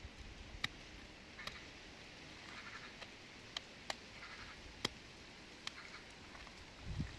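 Faint, scattered animal calls with six sharp, irregular knocks and a low thump near the end.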